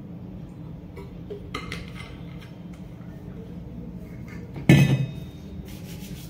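Metal water bottle handled after a drink: a few light clinks and taps, then one loud clunk near the end, as of the bottle being set down.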